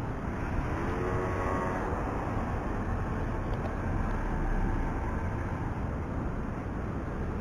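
City street traffic: a steady low rumble of passing road vehicles, with a brief whine of several pitched tones about a second in.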